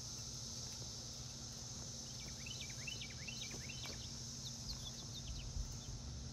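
Outdoor ambience: a steady high-pitched insect drone, with a bird giving a quick run of short chirps for a few seconds in the middle.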